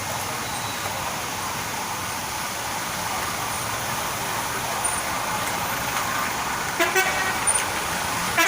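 Vehicle horns honking briefly about seven seconds in and again at the very end, over a steady rushing background noise.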